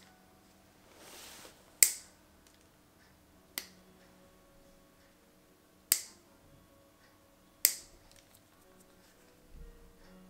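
Steel toenail nippers snipping through a toenail: four sharp clicks about two seconds apart, the second one fainter.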